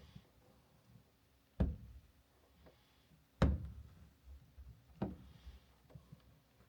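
Three sharp knocks, each with a low thud, about a second and a half apart; the second is the loudest.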